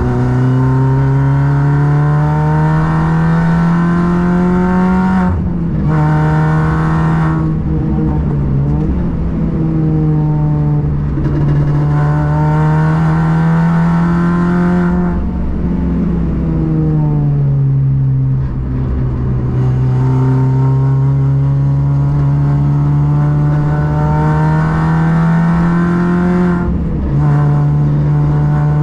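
Car engine at full throttle on a circuit, revs climbing steadily through each gear and dropping sharply at upshifts about five seconds in and near the end, with two spells of revs falling away in between, as when lifting off and braking for corners.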